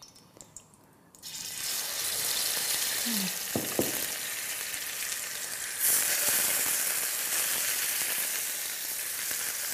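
Pork ribs searing in a frying pan of hot lard: a steady sizzle starts about a second in as the first piece goes in, and grows louder about halfway through as more are added.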